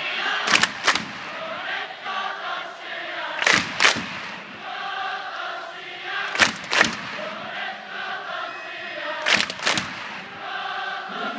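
Stadium crowd of football supporters chanting in unison, punctuated by a double clap in unison about every three seconds.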